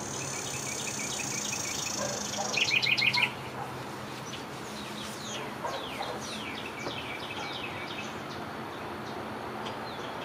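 Songbirds singing outdoors with many short chirps and quick downward-sliding whistled notes. The loudest moment is a fast run of notes about three seconds in. Until then a high, steady buzz runs under the birdsong.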